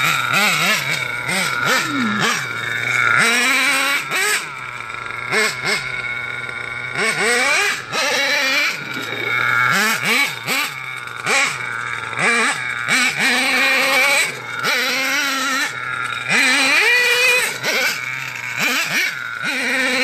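The small nitro engine of an HPI Savage XL RC monster truck, revving up and down again and again as the truck is driven around.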